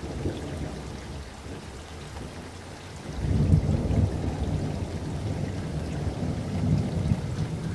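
Hailstones and heavy rain pelting a street and brick paving in a dense, steady patter. A louder low rumble comes in about three seconds in.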